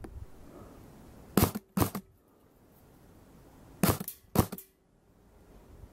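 An airsoft submachine gun firing single shots at targets, one of them a metal pan of water. Four sharp cracks come in two pairs, about half a second apart within each pair, the first pair about a second and a half in and the second near four seconds.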